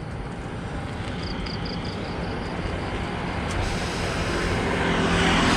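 Road vehicle noise growing steadily louder, with a steady engine hum coming in about four seconds in.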